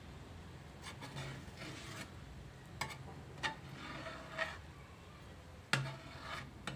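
Long-handled metal spatula stirring and scraping grated carrots in milk in a large iron kadhai, with a few sharp clinks of metal on the pan.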